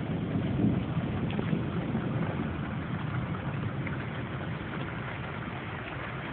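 Steady rush of storm wind and rain, strongest in the low range, with a few faint ticks.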